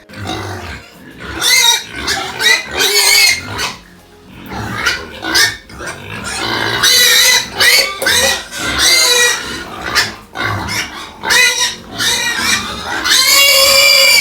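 Several large pigs squealing loudly and grunting while being fed, with repeated shrill squeals one after another as they crowd the feed.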